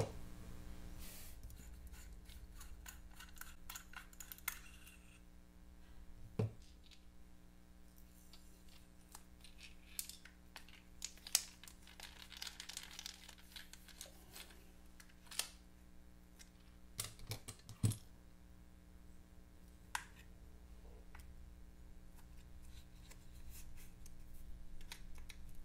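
Faint, scattered clicks and taps of small hand work on a plastic tool housing: a cordless soldering iron's pivoting head being unscrewed and taken apart with a small screwdriver, parts and tools knocking on the bench now and then. A low steady hum sits underneath.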